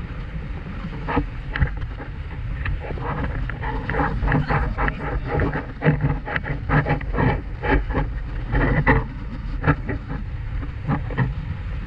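Wind buffeting the microphone over the steady drone of a boat moving fast on the water, with many short, loud bursts of sound from about a second in until the end.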